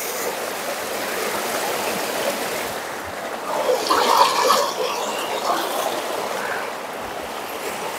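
Stream water running steadily, a continuous rushing trickle, with a louder, rougher stretch about four seconds in.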